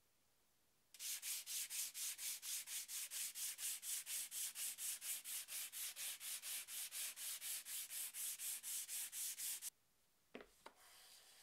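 Sanding block rubbed back and forth over the face of a wooden board by hand: quick, even strokes about four a second that stop abruptly near the end. Then a couple of light knocks and a fainter rubbing as a block is worked along the board.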